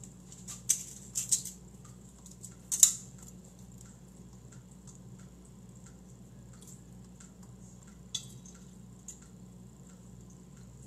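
Eggs being cracked on the rim of a stainless steel bowl and separated by hand: a few sharp taps, the loudest about three seconds in and another near eight seconds, over a low steady hum.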